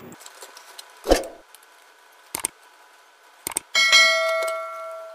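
A few soft clicks and taps, then about four seconds in a sharp metallic clang that rings on with a clear, fading tone for over a second. It comes from metal soldering tools being handled while a capacitor is desoldered from a TV circuit board.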